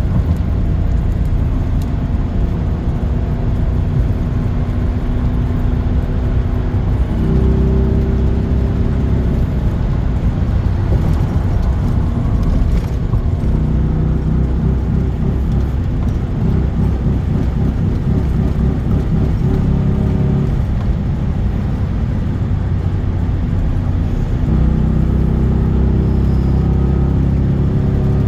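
Chevy Silverado's high-mileage LS V8 engine running while the truck is driven, its note stepping up and holding steady three times for a few seconds each before falling back. The owner says the engine builds no oil pressure at idle and the lifters might be bad.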